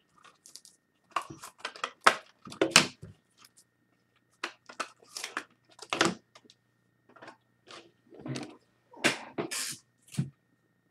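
Trading cards and plastic card holders being handled: irregular short rustles, scrapes and clicks.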